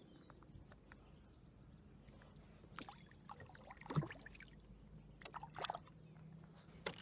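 Faint water sounds and small knocks and splashes around a plastic paddle boat as a released bass swims off. The loudest knock or splash comes about four seconds in.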